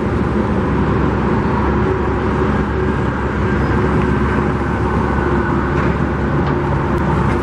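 Steady motor-vehicle noise: a low engine hum with road rumble, even throughout.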